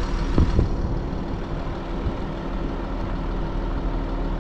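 Vehicle engine running at low speed during a slow drive, a steady low hum; a couple of dull knocks about half a second in.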